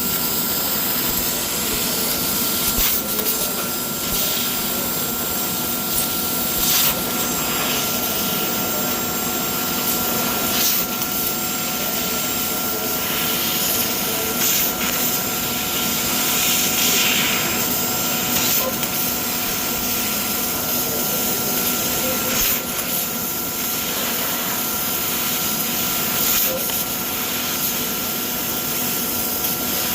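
CNC laser cutting machine running in a metal fabrication shop: a steady hiss with a constant whine, and a few scattered clicks.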